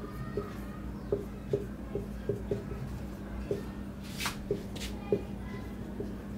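Marker writing on a whiteboard: irregular short taps and strokes of the tip, with one longer hissy stroke about four seconds in, over a steady low hum.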